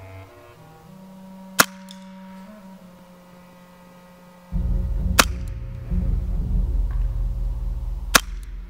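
A KWC C96 Mauser Broomhandle CO2 airsoft pistol firing three single shots through a chronograph, each a sharp crack, a few seconds apart. Background music plays under the shots and gets louder about halfway through.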